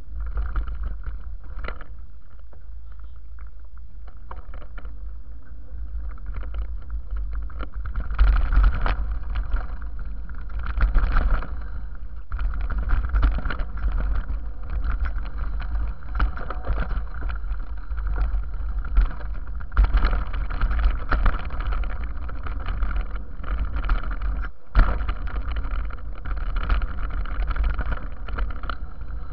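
Mountain-bike descent heard from a camera carried on a following rider: a steady low rumble of wind and motion on the microphone, with constant rattling and knocking from the bike and tyres going over rough dirt. The knocks get busier and louder from about eight seconds in.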